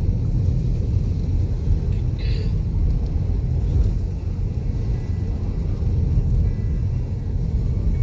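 Steady low rumble of a four-wheel drive's engine and tyres on the road, heard from inside the cab. A brief high-pitched sound stands out about two seconds in.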